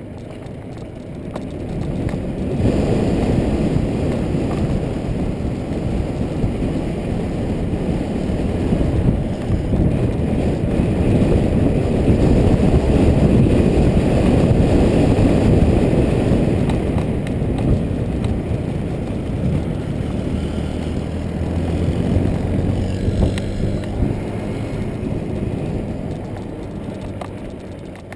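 Rough rattling rumble of wheels rolling fast down a steep cobblestone road. It builds over the first few seconds, is loudest in the middle and eases near the end, where a low steady hum joins in.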